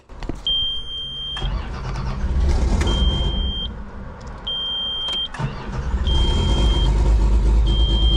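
2001 Komatsu excavator's diesel engine cranking over and starting, running steadily through the second half. The cab warning buzzer sounds throughout in short high beeps, about one every second and a half.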